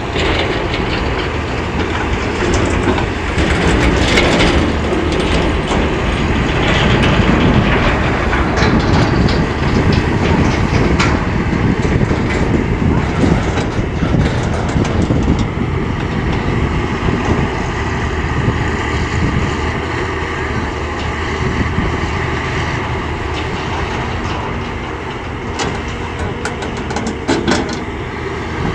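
CAT 320D excavator's diesel engine running hard under hydraulic load, with rocks clattering and knocking in clusters as the bucket digs and dumps them into a dump truck.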